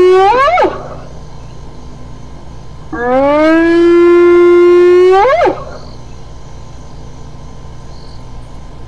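Spotted hyena whooping: the end of one whoop in the first second, then a full whoop about three seconds in. Each whoop is a long, held note that swoops sharply upward at its end.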